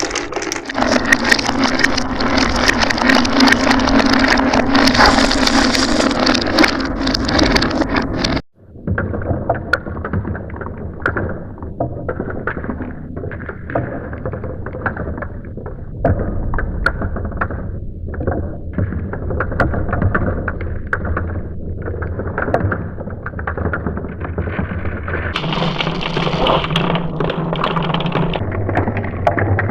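Marbles rolling and clicking down a marble run track, a steady rolling rumble with many small clicks. It cuts off abruptly about eight seconds in and resumes duller and lower.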